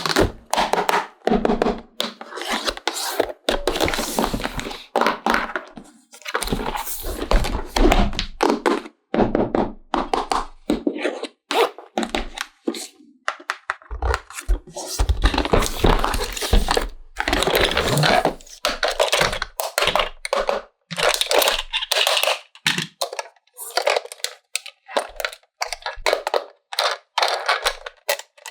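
Hands handling plastic toy parts and packaging: an irregular run of knocks, clicks, scraping and rustling.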